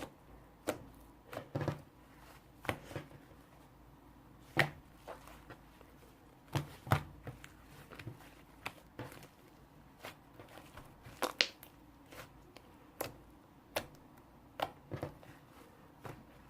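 Short, sharp taps and knocks at irregular intervals, roughly one or two a second, over faint room tone.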